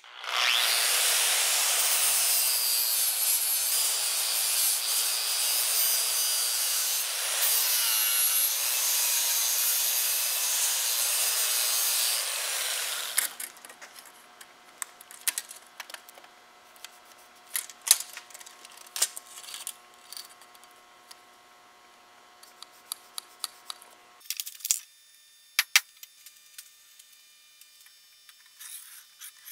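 Grinder grinding weld beads off the face of a thick steel plate: a loud, steady grind for about thirteen seconds that stops abruptly. After it come faint, scattered clicks and taps of hand tools on the plate.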